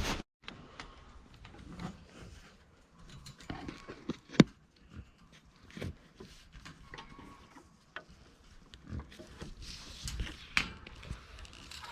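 Pigs grunting and rooting close by, with scattered small knocks and rustles and one sharp knock about four and a half seconds in.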